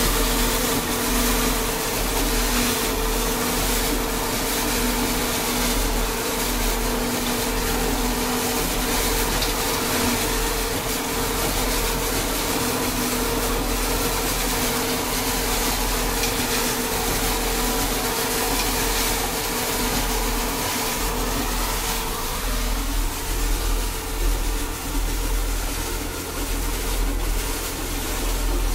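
John Deere 6420 tractor running under load while driving a Gallignani 5190 baler, a steady machine din with a low engine rumble and a steady whine that fades out about 22 seconds in.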